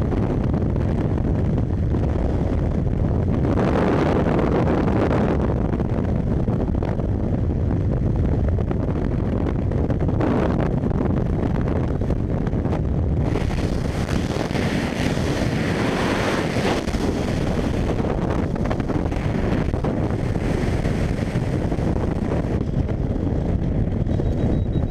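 Wind rushing over a camera microphone in skydiving freefall: a loud, steady buffeting noise that swells and eases every few seconds.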